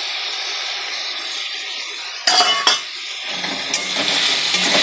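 Metal spatula clinking and scraping in a steel kadhai as potatoes with ground spices are stirred, over a steady frying sizzle. Two sharp clinks come about halfway through, and the sizzle grows louder near the end.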